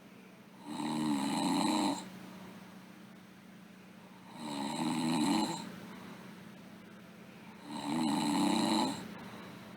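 A sleeping girl snoring: three snores about three and a half seconds apart, each lasting a little over a second, with quieter gaps between them.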